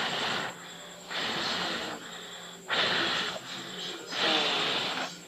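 A person breathing heavily close to the microphone: four loud, airy breaths, each about a second long and spaced a little over a second apart.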